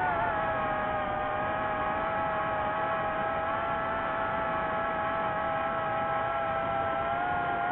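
DJI FPV drone's motors and propellers whining steadily while cruising at speed, a few tones over a rushing noise, the pitch wobbling briefly at the start and then holding level.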